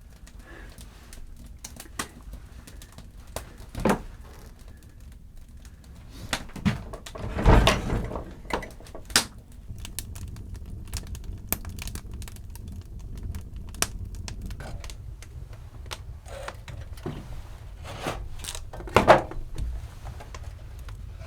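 Scattered knocks, clicks and thuds of objects being handled in a small room, with the loudest clatters about seven and a half seconds in and again near the end.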